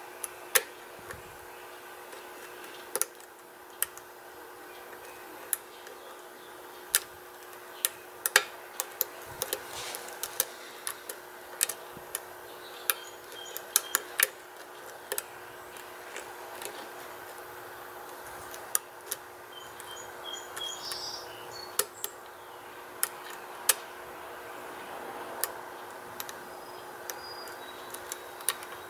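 Metal lock pick and tension wrench clicking and scraping on the pins inside a pin-tumbler challenge lock cylinder during single-pin picking: irregular sharp ticks, a few to several every couple of seconds, over a steady hum.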